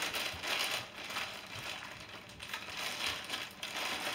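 Clear plastic packaging crinkling in irregular bursts as it is handled and pulled open.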